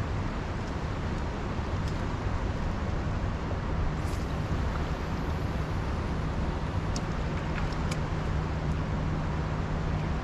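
Steady outdoor rumble of wind on the microphone and moving water in a dam's tailwater. A low steady hum joins about four seconds in, and there are a few faint clicks.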